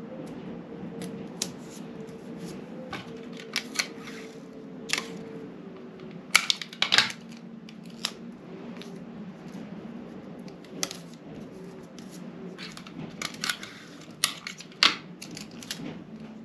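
Paper pattern pieces being taped together by hand: irregular crackles and clicks of the paper and sticky tape, thickest about six to seven seconds in and again around fourteen to fifteen seconds, over a steady low hum.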